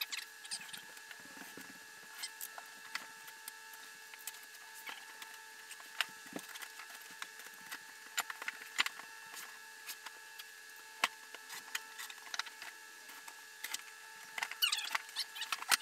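Large cardboard shipping box being handled and opened by hand: scattered crackles, taps and knocks of cardboard at irregular intervals, with a run of short squeaks near the end as the flaps are pulled open.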